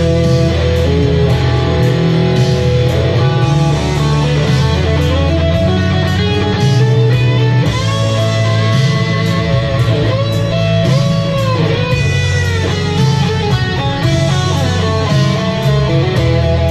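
Electric guitar solo played live, with long sustained notes bent up and down, over a backing of steady bass and drums.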